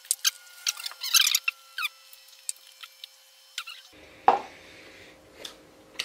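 Potato chips crunching in a dense run of sharp, crackly clicks for about two seconds, then scattered crunches, with one louder burst a little after four seconds.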